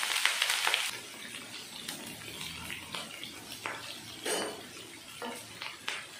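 Chopped onions and curry leaves sizzling in hot tempering oil with mustard seeds and dals in a non-stick pan. The sizzle is loud at first and dies down after about a second. A wooden spatula then stirs them, with scattered scrapes and taps against the pan.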